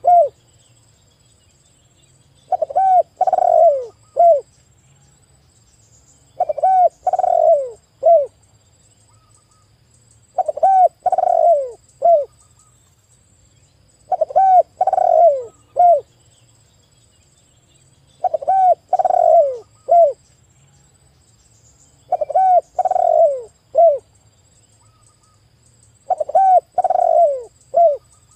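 Spotted dove cooing: a three-note phrase, a short coo, a longer rolling coo and a short closing coo, each note falling in pitch. The phrase repeats about every four seconds, seven times, with quiet gaps in between.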